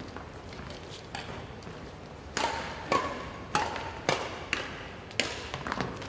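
Badminton rackets hitting a shuttlecock: a couple of scattered hits, then from about two seconds in a quick run of crisp hits roughly every half second, each ringing briefly in the hall.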